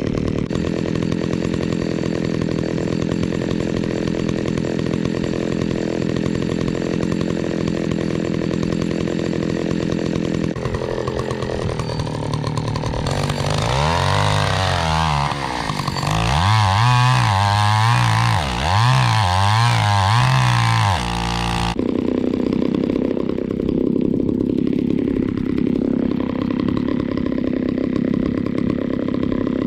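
John Deere 70V two-stroke chainsaw running steadily. About 13 seconds in its pitch swings up and down over and over as it revs and labours in the wood, then about 22 seconds in it drops suddenly back to a steady lower running note.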